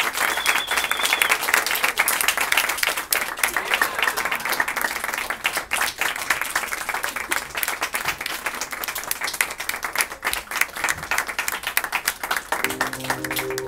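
Theater audience applauding at the close of a stage show, the clapping dense at first and thinning out. A few chiming notes of music come in near the end.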